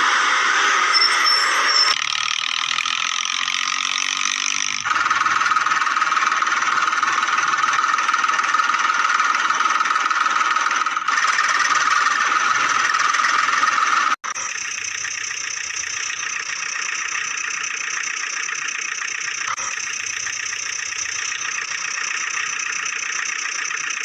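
A steady engine sound, likely dubbed over the toy-truck footage, that changes abruptly several times, with a brief cut-out about two-thirds of the way through.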